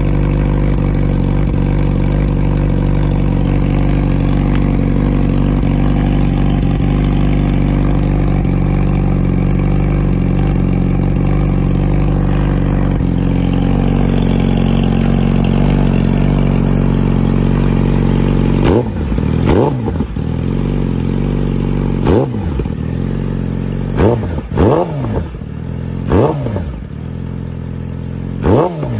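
Yamaha R6 inline-four engine idling steadily through its cut-down stock exhaust, then given about seven quick throttle blips, each rev rising and dropping sharply, over the last ten seconds.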